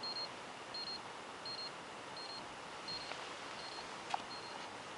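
A short, high electronic beep repeating evenly, about seven times, roughly every three-quarters of a second, over a faint steady hiss. There is a single click about four seconds in.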